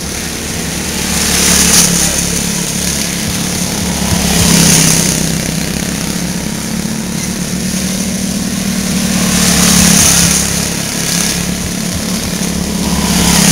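Quarter midget race car's small single-cylinder engine running at a steady pitch as it laps a small oval, getting louder each time it passes close by, about four times.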